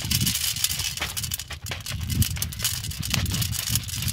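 Hand-held jab planter loaded with maize seed being stabbed into rooty soil again and again, giving irregular knocks and rattles.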